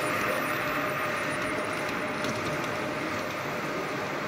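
Model electric passenger train rolling along the track, its motor and wheels running steadily and fading slightly as it moves away. Behind it is the steady noise of a busy exhibition hall.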